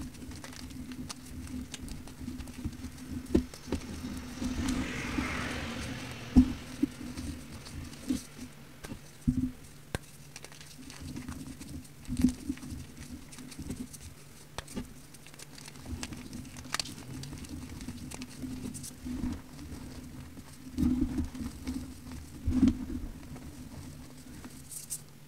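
Crumbly powder bars crushed between fingers into loose powder in a plastic tub: soft irregular crunches and sharp ticks, with a longer hiss of powder sifting through the fingers about four seconds in. A low steady hum runs underneath.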